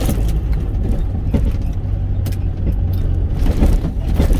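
Delivery truck's engine and road noise heard inside the cab while driving: a steady low drone, with a few faint short clicks and taps.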